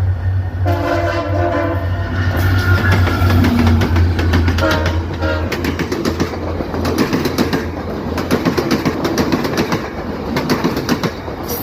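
A passing train: the locomotive's multi-note horn sounds a longer blast and then a shorter one about two seconds later, over a steady low engine drone. The wheels then clatter rhythmically over the rail joints as the cars roll by.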